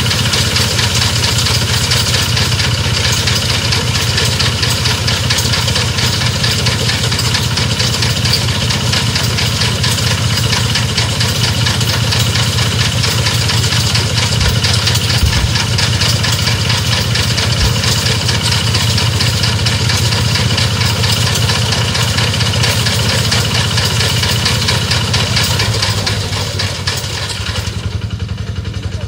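Small engine of a motorised rice-cutting machine running steadily, dropping in level and growing duller in the last few seconds.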